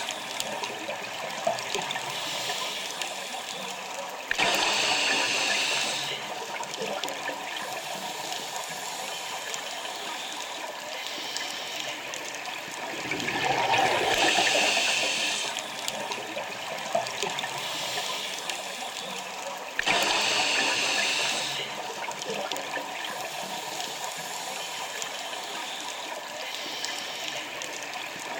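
Scuba diver breathing underwater through a regulator: three loud rushes of exhaled bubbles, several seconds apart, with a quieter watery hiss between them.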